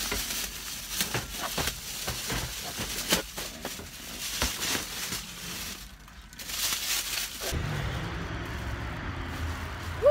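Plastic grocery bags rustling and crinkling as they are handled and pulled out of a car, with quick crackles and knocks. About seven and a half seconds in, this gives way to a steady low rumble of wind on the microphone outdoors, and a short high note sounds right at the end.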